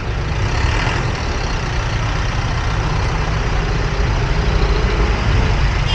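Yamaha motor scooter riding slowly through dense traffic: its engine and the surrounding minibuses, cars and trucks make a steady, loud mix of engine and road noise, with no single event standing out.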